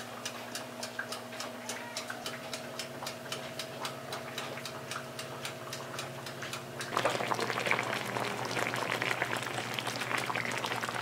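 Mechanical wind-up timer of an oven toaster ticking steadily, a few ticks a second, over the oven's steady hum. About seven seconds in, it gives way to the crackling bubble of tilapia simmering in coconut milk (ginataan) in a pan.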